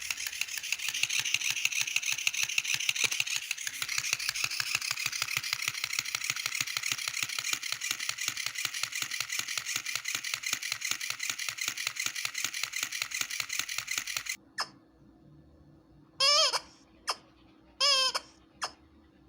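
A noisy dog toy makes a fast, even rattling rhythm for about fourteen seconds, then stops suddenly. After a pause, a squeaky dog toy gives two short squeaks that bend in pitch, with a couple of faint clicks.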